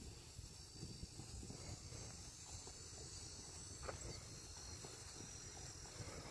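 Insects trilling steadily in a high register over a low, even rumble.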